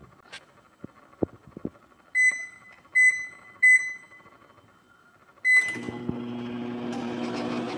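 LG over-the-range microwave: three short high keypad beeps as a cook time is entered, then a fourth beep about five and a half seconds in as Start is pressed, after which the oven starts running with a steady hum and fan.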